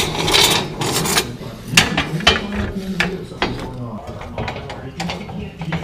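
Irregular metallic clicks and clanks, about two a second, as the white coil-over springs on the RZR XP1000's Fox shocks are grabbed and shifted by hand. With the car jacked up, the springs hang loose on the shock bodies and clatter against them.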